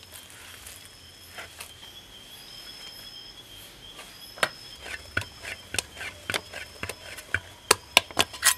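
Hands kneading wet roti dough of flour and grated coconut in a clay pot, giving sharp sticky slaps and squelches. They begin about halfway through, come roughly two a second and are loudest near the end. Insects chirp steadily underneath.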